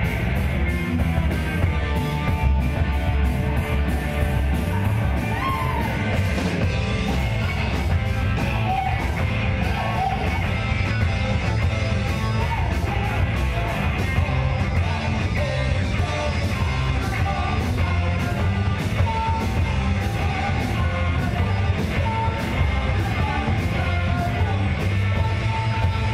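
A live rock band playing a loud, fast number: a singer shouting the vocal over electric guitar, bass, keyboard and a drum kit, with cymbal hits at a steady beat throughout.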